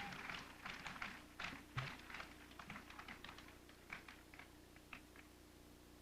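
Scattered hand claps from a small audience thinning out and fading to a few last claps, as applause dies away after a song.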